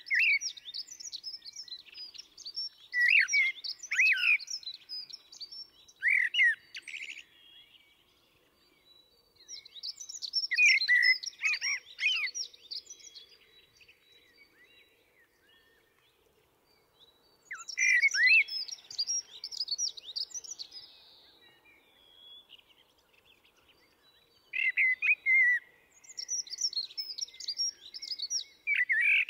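Eurasian blackbird singing: a run of separate song phrases a few seconds apart, each a low fluty warble followed by a thin, high twitter.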